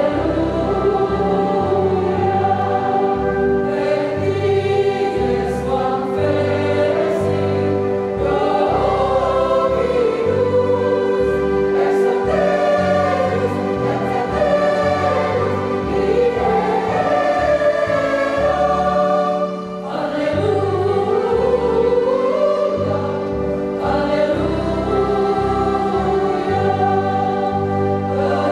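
A women's church choir singing a hymn in several voices. Underneath are steady held notes and a bass line that changes about once a second.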